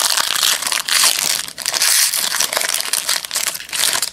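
Foil-lined wrapper of a 2002 Fleer Tradition baseball card pack crinkling and tearing as it is opened by hand, a dense crackle that stops just before the end.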